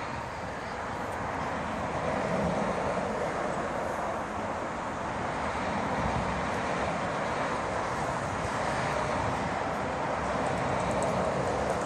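Steady, even background rumble with no distinct events.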